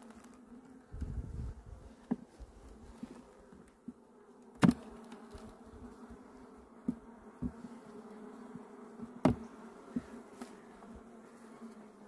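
Honeybees humming steadily at an open hive, with sharp knocks and clicks as the wooden frames are worked in the box. The loudest knocks come about four and a half seconds in and again just after nine seconds.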